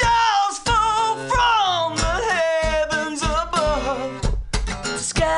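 Acoustic guitar strummed while a man sings long, sliding notes with vibrato.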